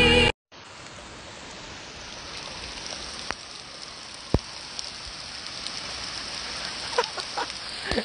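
Steady hiss of light rain, with two sharp clicks about three and four seconds in. Near the end a husky starts giving short, high vocal calls.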